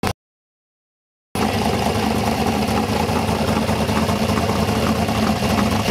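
Modified V8 engine in a Holden VK Commodore idling steadily with the bonnet up, cutting in about a second in after a brief dropout.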